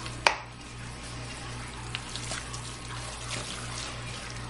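Wet, squelching stirring of a runny raw ground-meat and vegetable mix with a wooden spoon in a stainless steel bowl, with small scattered clicks and one sharp click about a quarter second in.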